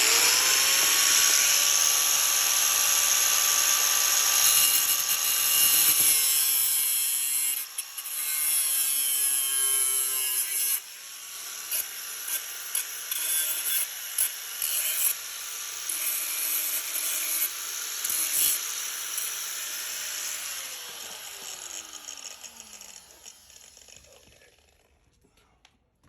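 A power saw starts up and cuts, a steady motor whine under a harsh hiss, loudest over the first ten seconds or so and then in shorter passes. About twenty seconds in the motor is let go and winds down with a falling whine.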